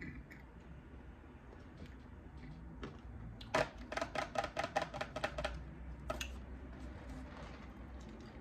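Close-up eating sounds with scattered small clicks. About halfway through comes a quick run of crackling clicks, roughly eight a second, lasting about two seconds.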